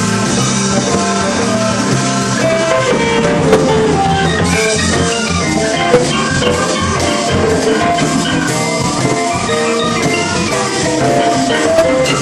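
Blues band playing live: an electric guitar runs quick single notes over drums and a low accompaniment.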